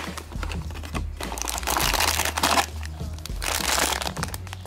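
Thin plastic snack bag crinkling as it is lifted out of its box and handled, in two long rustling stretches, one about a second in and one near the end.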